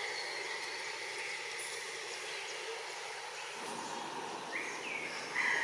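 Steady outdoor ambient noise in the trees, with a few short, high chirping calls in the last second or so.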